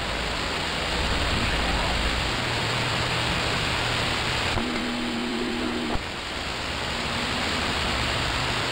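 CB radio receiver on channel 28 (27.285 MHz) hissing with open-channel static between transmissions. The noise changes character about four and a half seconds in, and a low steady tone sounds for just over a second.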